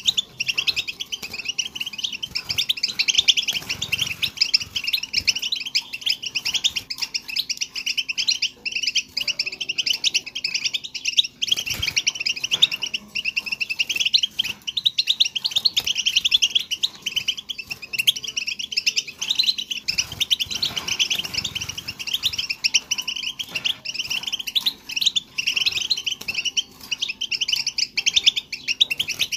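European goldfinch twittering song: a rapid, unbroken chatter of high notes. This is the 'bitbita' goldfinch call that trappers play to lure goldfinches.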